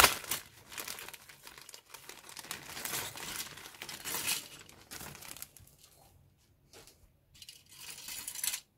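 Clear plastic bag crinkling and rustling as plastic model-kit sprues are pulled out of it. The rustling thins out after about five and a half seconds, with one last short crinkle near the end.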